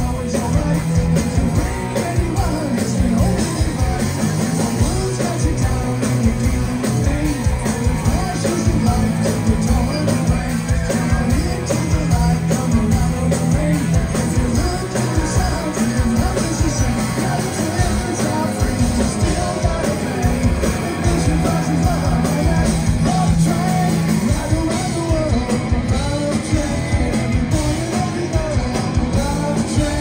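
Live rock band playing a song with electric guitars, drums and a sung lead vocal.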